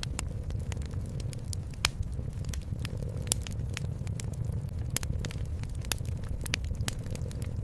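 Fireplace crackling: irregular sharp pops and snaps, one louder pop a couple of seconds in, over a steady low rumble.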